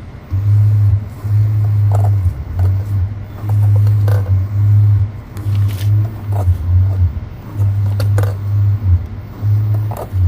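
A car's steering clicking while the wheel is turned, one sharp click about every two seconds. Under it a loud low hum starts and stops in short stretches.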